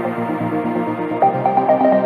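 Background electronic music, a synth melody moving between held notes over sustained chords.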